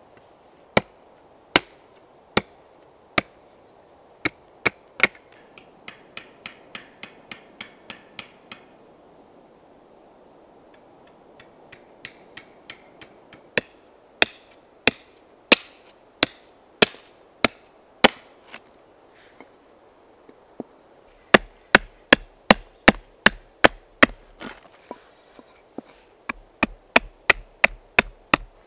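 Billhook chopping into a wooden spoon blank held upright on a stump chopping block: sharp cuts roughly one a second, with runs of quicker, lighter chops about six seconds in and again through the last third.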